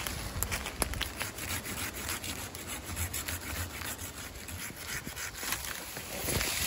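Hand saw cutting through the green trunk of a small Sydney golden wattle (Acacia longifolia) near its base, in repeated back-and-forth strokes.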